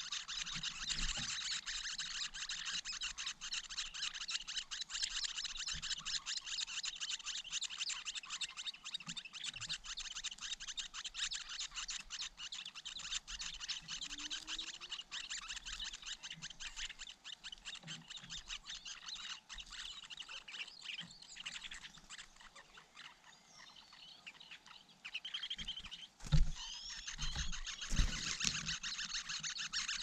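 Leiothrix nestlings begging in the nest, a dense continuous chatter of rapid high chirps. It eases off for a few seconds past the middle and picks up again as they are fed near the end. A few low thumps come near the end.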